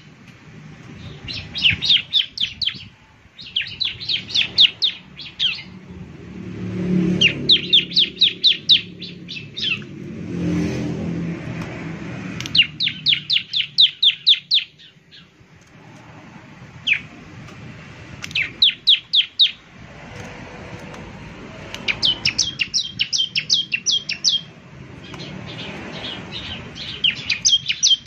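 Bar-winged prinia (ciblek) singing: runs of rapid, sharp, high chirps about a second long, repeated with short pauses between. A low rumble sits under the song for a few seconds about a quarter of the way through.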